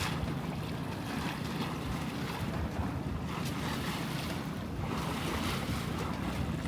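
Wind buffeting the microphone over water washing along the hull of a small sailboat under way.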